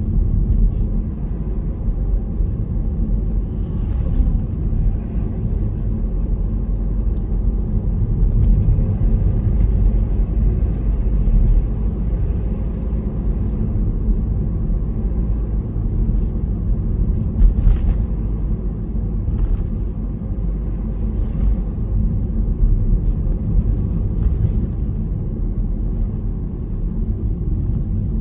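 Car driving on city streets: a steady low rumble of engine and road noise, broken by a few short sharp knocks, the sharpest about seventeen seconds in.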